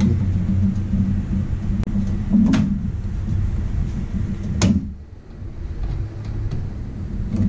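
Hands fitting parts into an open steel PC case: two sharp clacks about two seconds apart as components knock against the case, over a steady low hum.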